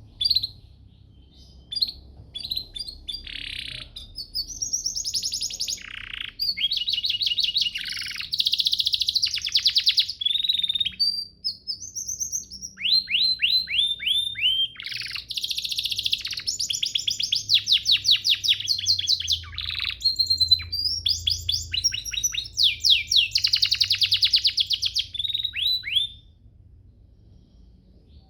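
Domestic canary singing a long, varied song of rapid trills and rolls on high notes, broken by a few short pauses and stopping about two seconds before the end.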